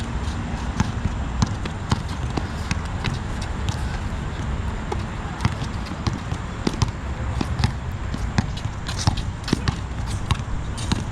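Basketball being dribbled and bounced during a game, with irregular sharp thuds that come thicker near the end, over a steady low rumble.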